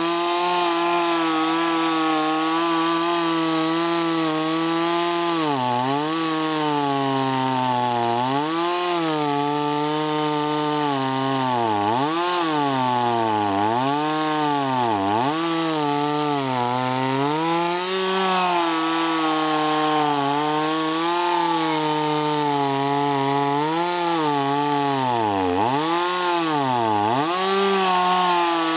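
Stihl 026 two-stroke chainsaw with a modified muffler, cutting at high revs through a thick round of hard crotch wood. The engine note sags again and again as the bar is pressed into the cut, then picks back up.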